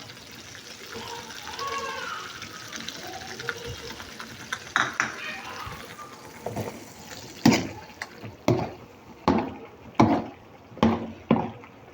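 A metal utensil striking a cooking pot, a sharp knock about once a second through the second half, over a low hiss of liquid.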